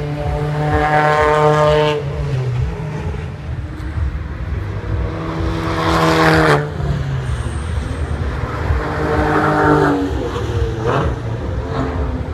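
Racing car engines accelerating hard, one after another, each rising in pitch and dropping suddenly at a gear change, over a constant low rumble of engine noise.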